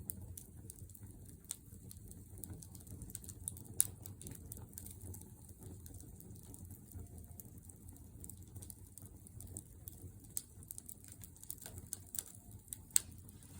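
Wood fire crackling in a fire pit stand: irregular sharp pops and snaps over a low steady rumble, the loudest pops about four seconds in and near the end.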